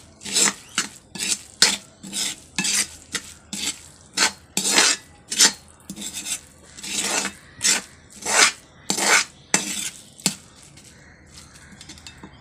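Metal spatula scraping and stirring a thick banana flower and onion mixture around an iron kadai, in quick repeated strokes of about one or two a second, stopping near the end.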